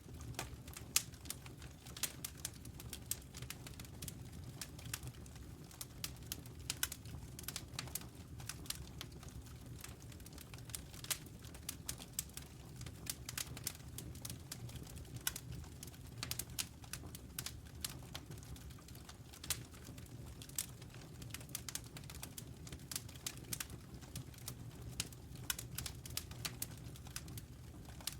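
Campfire crackling: irregular sharp pops and snaps of burning wood over a low steady rumble of the flames.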